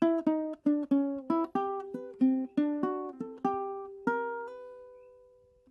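Solo ukulele playing a quick run of plucked notes, about four a second. A last note or chord sounded about four seconds in is left to ring and fades away.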